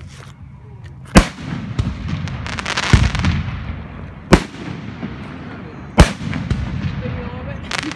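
Aerial firework shells bursting: three sharp bangs, about a second in, after four seconds and after six, with a spell of crackling between the first two and again near the end.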